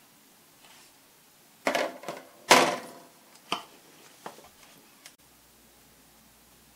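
About five light knocks and clicks of small objects being handled and set down on a work surface, the loudest about two and a half seconds in.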